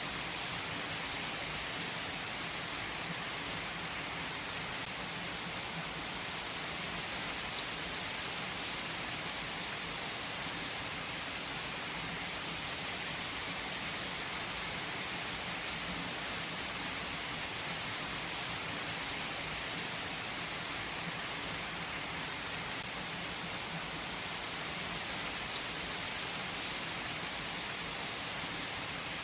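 Heavy rain falling steadily on a tree's foliage, a dense even hiss with no breaks.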